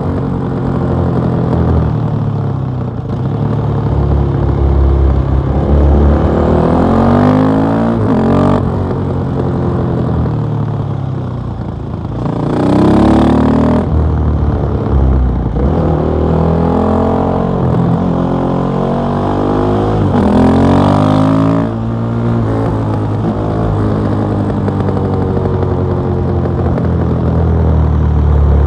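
KTM 660 SMC's single-cylinder engine through an Akrapovic exhaust, under way and pulling through the gears: the revs climb, drop at each shift or throttle-off and climb again many times, with the hardest pulls about a quarter and three quarters of the way in.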